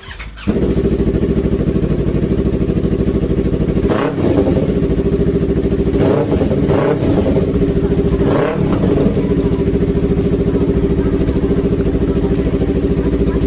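Yamaha MT-03's parallel-twin engine idling through its exhaust, blipped four short times around the middle before settling back to a steady idle.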